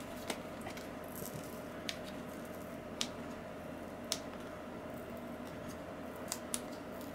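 Fingers picking and peeling at the glued flap of a thin cardboard retail package, stuck down with a lot of adhesive: quiet rustling of the card with a handful of sharp little clicks, the loudest about three and four seconds in.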